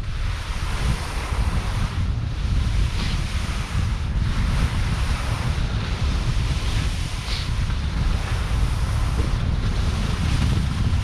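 Wind buffeting the microphone during a ski descent, over a steady hiss of skis sliding on corn snow that swells briefly a few times, at about each turn.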